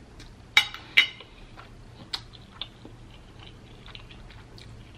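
Close-miked chewing of a mouthful of noodles, with small wet mouth clicks throughout and two sharper clicks about half a second and a second in.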